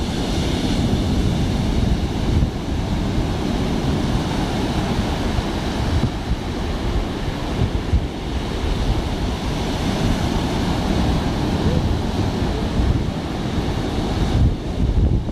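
Ocean surf breaking and washing up a sandy beach in a continuous rushing wash, with wind buffeting the phone's microphone in gusts.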